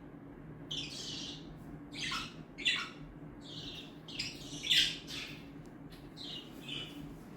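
Small pet parrots calling: a string of short, harsh squawks and chirps, several sliding down in pitch, over a steady low hum.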